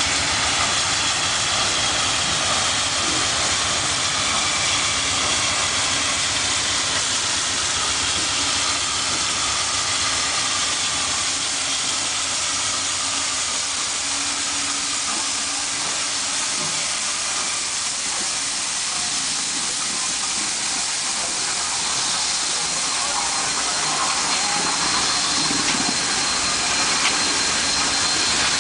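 Southern Pacific 4449, a GS-4 4-8-4 steam locomotive, standing and venting steam with a steady, loud hiss, breathing like it is alive while waiting to move.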